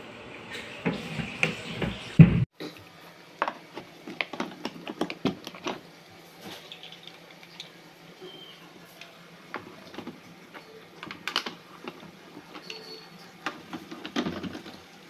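Plastic caster wheels being pressed and snapped into the sockets of a plastic battery-cabinet base, with the hard plastic parts handled. The result is a run of sharp plastic clicks and knocks, loudest in the first two seconds, then scattered lighter clicks.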